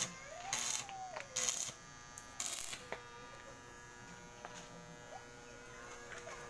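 Electric arc welding: the arc crackles and sizzles in about four short bursts during the first three seconds, then stops, leaving a faint steady hum.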